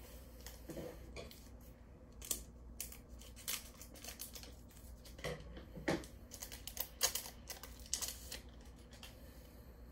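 Foil wrapper of a Pokémon booster pack crinkling and crackling in irregular bursts as it is handled and opened.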